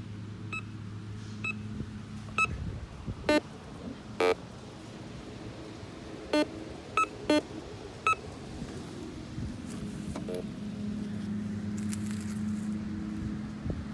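Metal detector with a target-ID display giving short electronic beeps as its coil sweeps over a dug hole, some in a high tone and some in a lower tone, about nine in the first eight seconds. A steady low hum runs underneath and grows louder later. Soil rustles faintly as a hand sifts it near the end.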